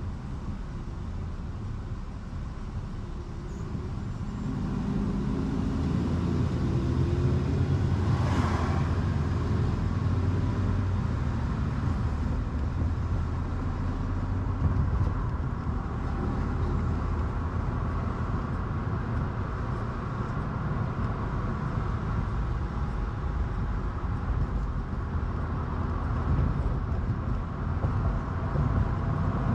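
Car driving in city traffic: engine and road noise, quieter at first while the car waits in a queue, then rising from about four seconds in as it pulls away and picks up speed. A brief whoosh comes about eight seconds in, then a steady rumble of tyres and engine at cruising speed.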